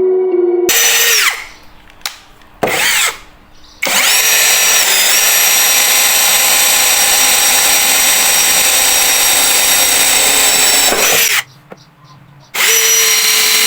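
Small electric power tool running in bursts with a high whine. Two short runs come first, then a long steady run of about seven seconds with a brief dip in pitch as it takes load, and another run near the end. Each run winds down when released.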